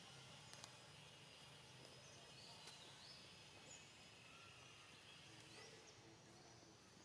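Faint outdoor background noise with a few short, high, rising chirps and light clicks.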